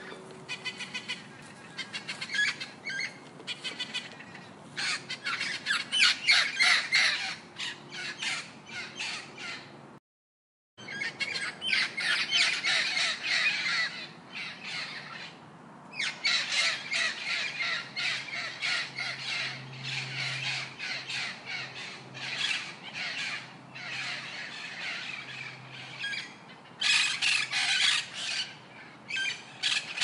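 Parrots squawking in rapid runs of harsh, screeching calls, with a short break about a third of the way through.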